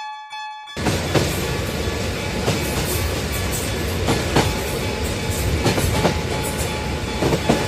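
Level-crossing warning bell ringing in quick repeated dings. Then, about a second in, a train passes with a loud steady rushing noise and scattered wheel clacks, the bell still faintly audible under it.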